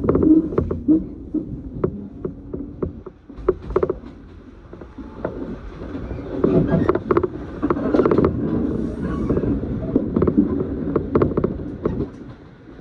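Electric train running on the track, heard from inside the passenger car: a low rumble with a run of sharp clicks from the wheels and rails. It quietens a few seconds in, then grows louder again.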